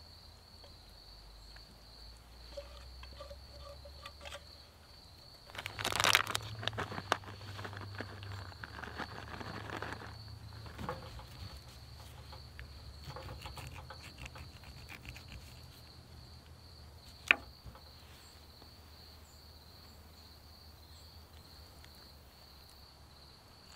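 A metal spoon clattering and scraping in a steel saucepan as chili is scooped into a bowl, loudest about six seconds in, then a knife working an avocado on a cutting board with one sharp click about three-quarters of the way through. A steady high insect trill runs underneath throughout.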